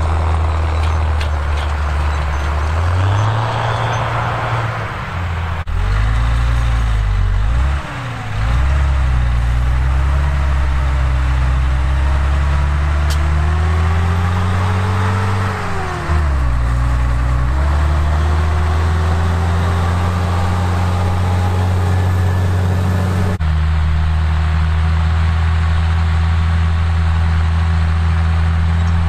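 Fendt Favorit 818 tractor's six-cylinder diesel engine working under load while pulling a Väderstad Rapid seed drill. The engine note rises and falls a few times and holds steady the rest of the time, with two abrupt jumps in the sound.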